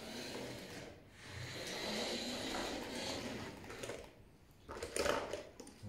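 Small electric drive motor and gears of a toy RC truck whirring in surges as it drives across a tabletop. It stops about four seconds in, and a brief louder knock follows about a second later.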